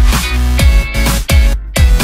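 Background electronic dance music with a heavy, punchy kick drum beat over deep bass and synth chords.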